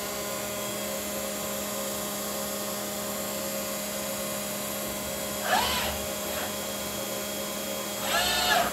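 Robot-driven random orbital sander running steadily on a cabinet door: a constant machine hum with several steady tones. Twice, about five and a half seconds in and near the end, the pitch briefly sweeps up and back down, the second time as the sander lifts clear of the door.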